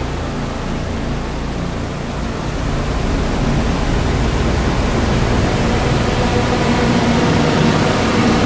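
Dense hiss of electronic noise with a low rumble underneath, the sound of an ambient noise piece. About three seconds in it grows a little louder, and faint steady tones begin to come through the hiss.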